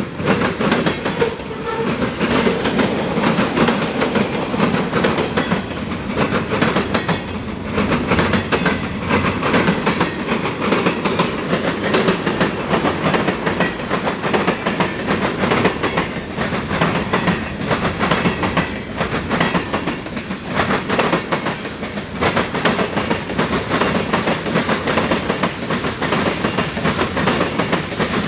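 CSX freight train rolling past at close range, its cars' wheels clattering continuously over the rails with no horn.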